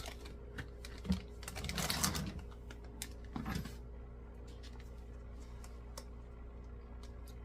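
Light clicks and knocks of objects being handled, with a brief rustling scrape about two seconds in and another shorter one a little later, over a steady low hum.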